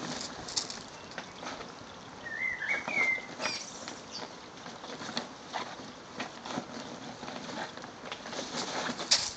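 A black Labrador puppy's paws scuffling and crunching on loose gravel while it climbs on a fabric pop-up garden bag, making irregular crunches, scrapes and rustles. A short high warbling chirp comes about two to three seconds in.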